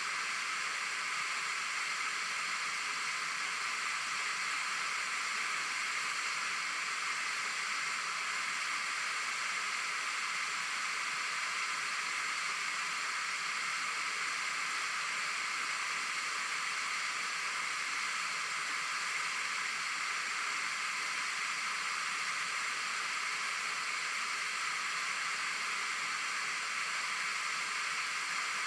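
Waterfall rushing as a steady, even hiss that does not change.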